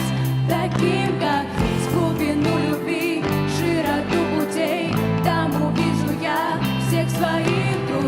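A band's song playing with no lyrics sung here: a steady drum beat under bass and held chords, with a lead melody that wavers and bends in pitch.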